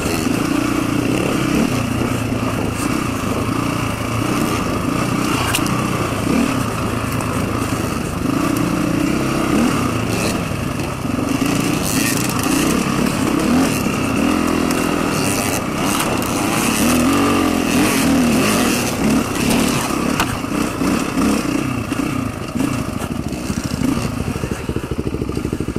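Dirt bike engine heard up close on board while riding a trail, its pitch rising and falling with the throttle.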